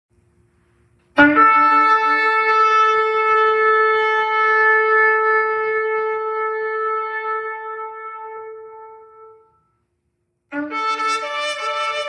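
Shofar blown in two long blasts. The first starts on a brief low note, jumps to a higher held note and slowly fades out; after about a second of silence a second blast starts near the end, again low then higher.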